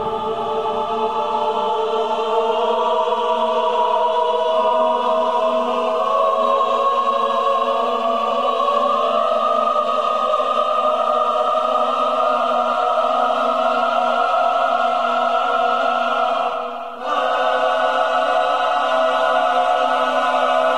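A choir singing slow, sustained chords as a dramatic score. The voices briefly drop out about 17 seconds in and come straight back.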